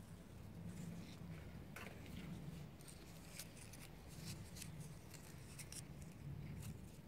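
Faint dry rustling and crackling of cotton plant leaves and bolls handled by fingers close to the microphone, in short irregular clicks, over a low steady background hum.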